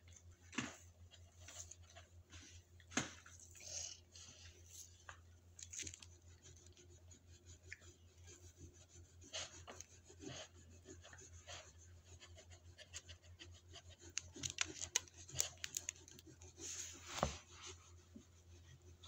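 A small dog snuffling through a fleece snuffle mat, rustling the strips and crunching on the small treats it finds. Faint, irregular clicks and crunches come and go, and they come thicker toward the end.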